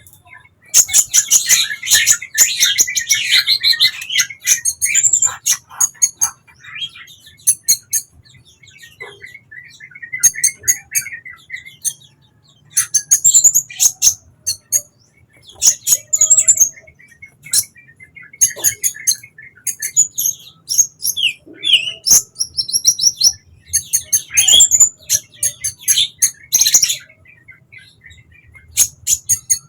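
Sunbird singing: bursts of rapid, high-pitched twittering chirps and short trills, repeated every second or two with brief pauses, over a faint low hum.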